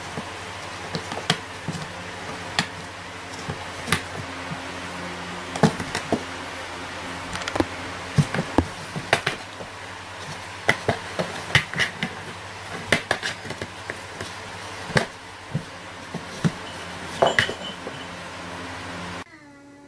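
Irregular sharp taps and knocks on cardboard as a cat shifts and paws about in a cardboard box, over a steady low hum.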